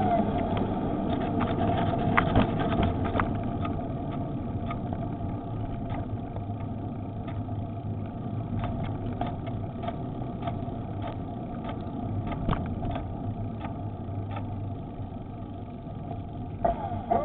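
Electric bicycle motor whining at a steady pitch while cruising, over rumbling tyre and wind noise, with scattered clicks and rattles from bumps in the road. Near the end the whine starts to rise in pitch as the bike speeds up.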